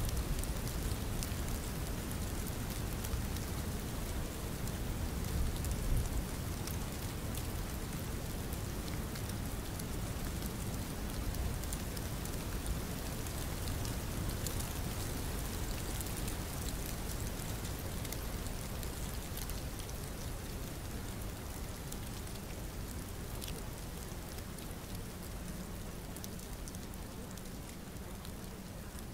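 Steady rain, an even hiss sprinkled with many small drop ticks over a low rumble, slowly getting a little quieter toward the end.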